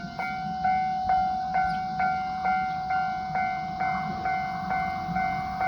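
Japanese railway level-crossing warning bell ringing, a repeated ding about twice a second over a steady tone: the crossing's alarm that a train is approaching.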